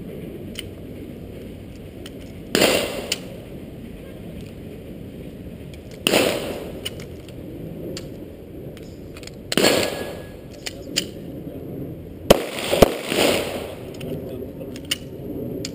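Pistol shots from a Zastava EZ9: about five single shots spaced some three seconds apart, the last two about half a second apart, each followed by a ringing echo.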